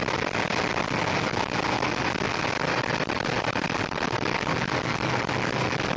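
Steady road and wind noise inside a vehicle driving at motorway speed, a continuous rushing with a rough crackle through it.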